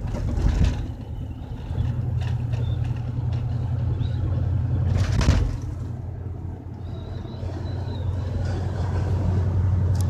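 Car driving, heard from inside the cabin: a steady low rumble of engine and road noise, with brief louder rushes about half a second in and about five seconds in.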